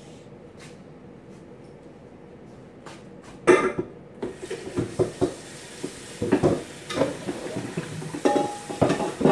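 A big metal cooking pot being handled and loaded with pumpkin chunks: a loud clank about three and a half seconds in, then a run of knocks and clatters. A steady hiss starts just after the clank.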